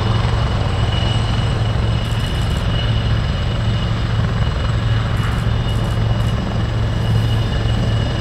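Helicopter running close by, a steady low rotor drone with a constant high turbine whine over it.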